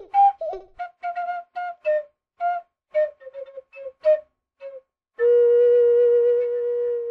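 High-pitched giggling: a string of short, squeaky laughs, then one long held squeal that rises in pitch at the end.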